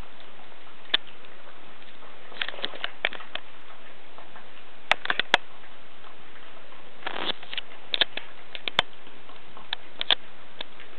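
West Highland white terrier puppy eating, its chewing and feeding making irregular sharp clicks and small crunches, some in quick little clusters, over a steady background hiss.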